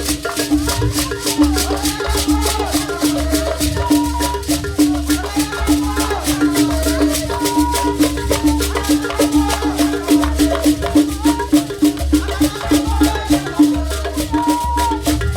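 Traditional Igbo dance music: shakers and rattles keep a fast, steady rhythm over a pulsing low pitched note, with voices singing a line that rises and falls.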